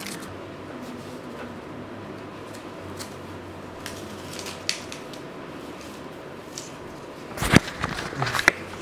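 Faint clicks and rustles of scissors and an adhesive wound dressing being handled and pressed onto a foot, over a steady low room hiss. Near the end comes a quick cluster of louder sharp knocks and crinkles.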